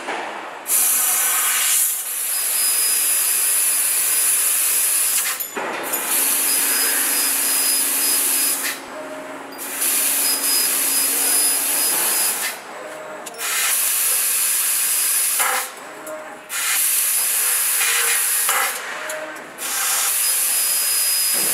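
HTF-3015GAR fiber laser tube cutter cutting a round metal tube: a loud hiss from the cutting head's assist-gas jet, with a faint high whine over it. The hiss comes in spells of a few seconds, broken about five times by short pauses between cuts.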